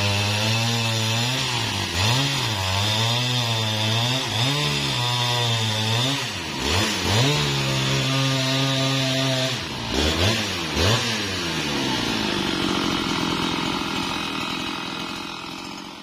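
A Husqvarna 395XP two-stroke chainsaw ripping lengthwise through a sengon log, its engine speed wavering as it works under load. About six seconds in it comes out of the cut and runs at a steady speed. Around ten seconds it is revved a few times, then it drops to a low idle and fades out at the end.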